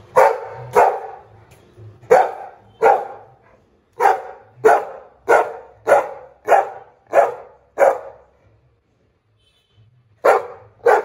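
A black-and-white pit bull-type dog barking in a steady series, about one loud bark every half second or so, then after a short pause two more barks near the end.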